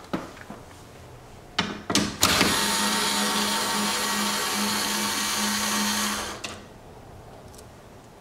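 Small cordless electric screwdriver running steadily for about four seconds, backing off an 8 mm nut. A few clicks just before the motor starts.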